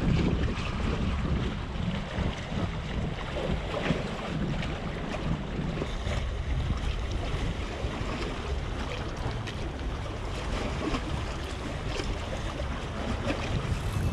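Wind buffeting the microphone over small sea waves sloshing against concrete tetrapod blocks, a steady rumbling rush.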